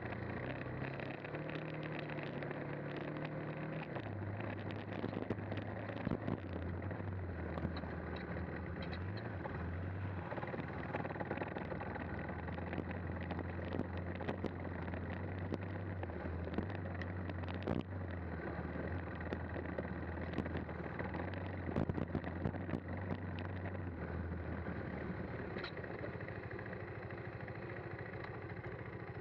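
KTM 390 Adventure's single-cylinder four-stroke engine running at low, fairly steady revs on a climbing dirt track. Its pitch drops a step about four seconds in. Scattered sharp knocks and clicks sound throughout.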